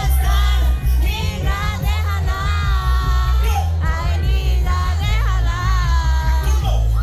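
Live concert music: a sung melody over a backing track with strong, steady bass.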